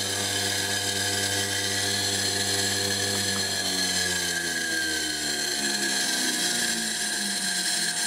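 Washing machine motor running on a variable-frequency drive: an electric motor whine that holds steady, then from about three seconds in falls in pitch as the motor slows down.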